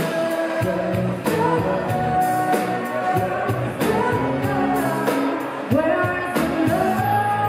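Live pop-rock band playing, amplified through a PA: singers holding and sliding between notes over drums and electric guitar.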